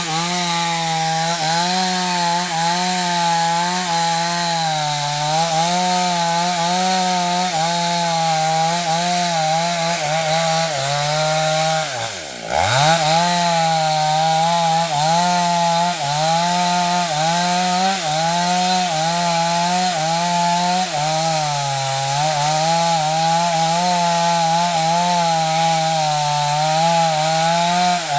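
Chainsaw running at high revs, cutting wood, its pitch wavering slightly under load. About twelve seconds in, the engine drops away briefly and then revs back up.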